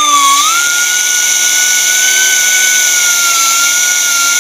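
Pneumatic cut-off tool with a thin abrasive wheel running at speed with a loud, steady high whine while cutting braided stainless-steel AN hose. The pitch dips briefly about half a second in, then holds level.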